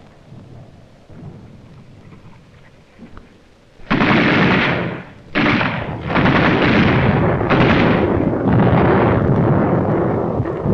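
Explosions on an old film soundtrack: a low rumble, then about four seconds in a run of about five loud blasts in quick succession, each ringing on into the next, like shells bursting.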